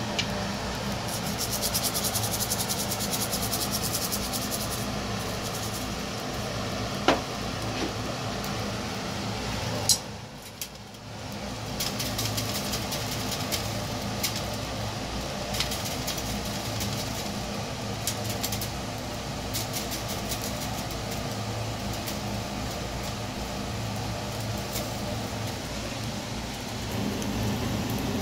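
Eels sizzling and crackling on a wire grill over charcoal, with many fine pops, over the steady hum of a ventilation fan. Two sharp clicks stand out, near seven seconds and about ten seconds in, and the sound drops away briefly after the second.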